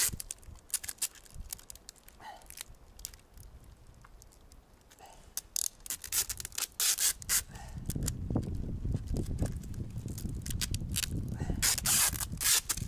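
Adhesive tape being pulled off its roll in rasping strips and wound around a wooden stick, with scattered short clicks at first. The loudest pulls come about halfway through and near the end, over low rubbing noise in the second half.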